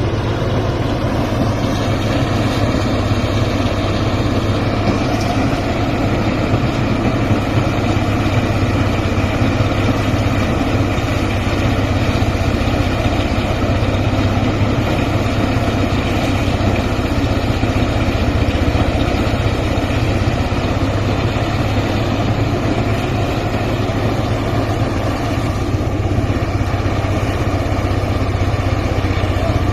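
Engine of a rice-harvesting machine running steadily, with an even, unchanging drone.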